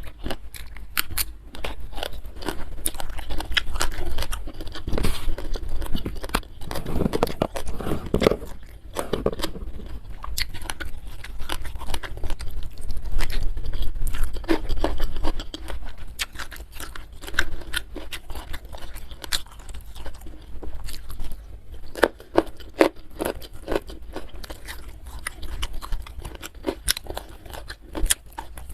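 A person chewing and crunching food close to the microphone: a dense run of wet chewing with sharp crunches throughout.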